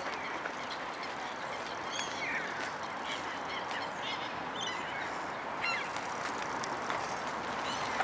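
Short, scattered calls of waterbirds over a steady background hiss, with one falling call about two seconds in and a quick cluster of calls near the middle.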